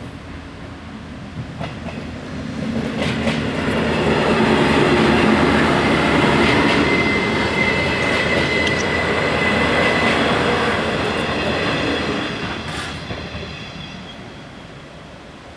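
A diesel regional passenger train passes over a level crossing. Its noise builds over a few seconds, holds loud, then fades as it moves away, with sharp wheel clicks over the rail joints as it arrives and leaves. A steady high whine from the wheels sounds midway through the pass.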